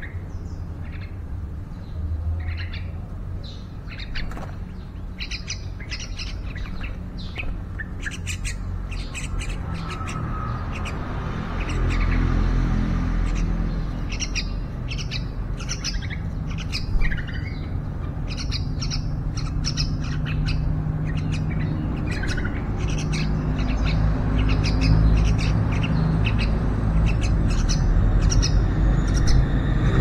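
Yellow-vented bulbuls calling, with many short chirps and squawks repeated throughout, as fledglings beg to be fed by the parent. A low rumble underneath gets louder about halfway through.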